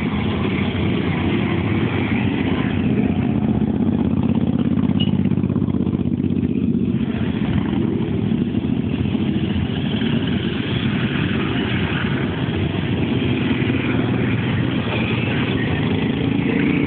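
Many motorcycle engines running together as a column of motorcycles rides past, a dense, continuous engine drone.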